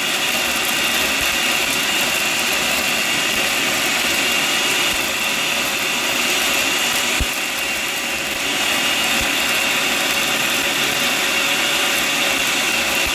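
Countertop blender running on high, grinding dry puppy kibble with goat's milk and water into a thick mush: a steady motor whir with a high whine over it.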